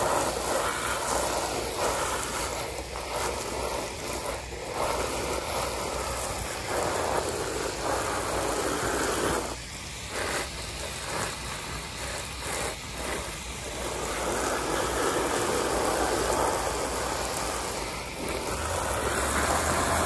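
Water spraying from a garden-hose pistol nozzle and splashing on a waterproof-coated fabric rooftop cargo bag and the car roof under it. It is a steady rush of spray that swells and dips as the jet moves, with a brief drop about halfway through.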